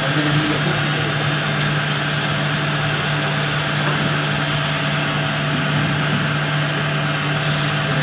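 Steady mechanical drone of the radio-controlled excavator and model trucks at work, with a constant low hum beneath it.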